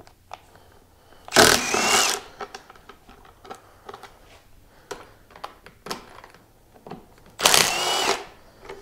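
Milwaukee cordless driver spinning out handguard bolts in two short runs of just under a second each, about six seconds apart, its motor whine bending in pitch. Light clicks of handled bolts and parts come between the runs.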